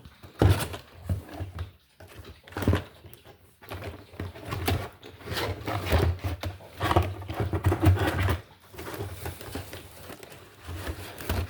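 Irregular rustling, crackling and knocking as packaging is handled, like plastic blister packs and cardboard being sorted and moved about, with dull bumps throughout.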